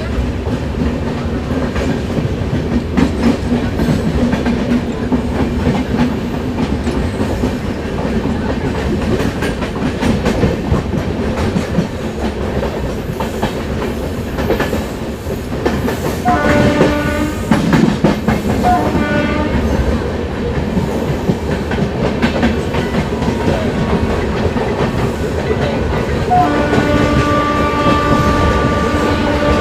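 Express train running at speed with a steady rumble and wheel clatter. A locomotive horn sounds in short blasts a little past halfway, then in a long blast near the end.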